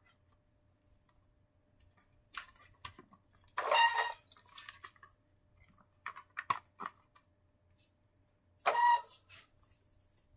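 Toys being handled and moved on a rug: soft rustles and small knocks of plastic toy furniture and stuffed animals, with two louder squeaky scrapes about four and nine seconds in.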